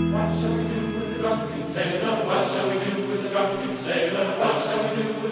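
Background music: a held chord dies away at the start, then a choir sings in chant-like chords.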